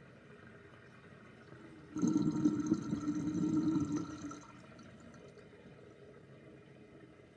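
Sink drain gurgling loudly for about two and a half seconds, starting about two seconds in, as air is drawn down the plughole with the draining water; a gulping sound with a held tone, before and after which only a faint trickle of water is heard.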